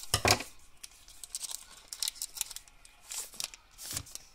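Foil wrapper of a Panini trading-card pack crinkling and tearing as it is opened, loudest just after the start, with more crinkling bursts as the cards are pulled out of it.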